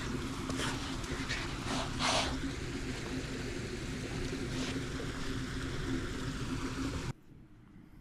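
Steady running water with a low hum, broken by a few short rustling noises as river otters tussle in the snow. About seven seconds in it cuts off abruptly to a much quieter outdoor background.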